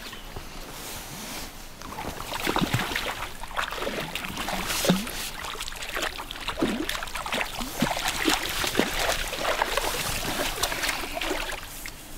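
A hooked trout splashing at the water's surface as it is played in to the landing net. The splashes are irregular and start about two seconds in, dying away near the end.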